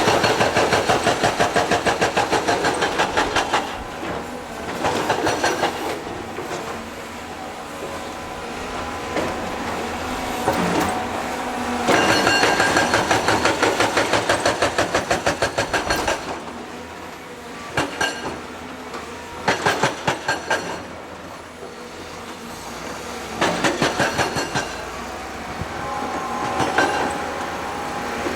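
Heavy construction machinery with a steady engine drone, broken by runs of rapid, evenly spaced metallic clanking that last from under a second to about four seconds.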